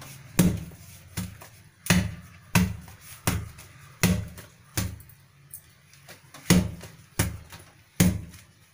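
A whole ripe toddy palm fruit being beaten against the floor over and over, about a dozen dull thuds roughly every 0.7 seconds with a short pause past the middle. This is done to soften the fibrous pulp so that its juice comes out.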